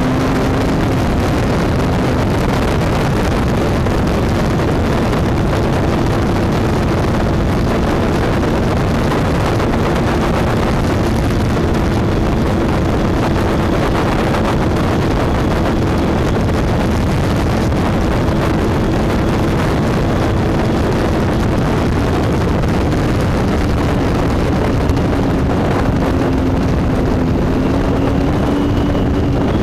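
Motorcycle engine running steadily at cruising speed under heavy wind rush on a handlebar-mounted microphone. The engine note sinks a little in the last few seconds as the bike slows, then rises again near the end.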